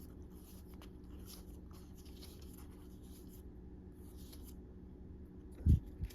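Faint sliding and rustling of trading cards being handled and flipped through, over a steady low hum. A single dull thump about five and a half seconds in is the loudest sound.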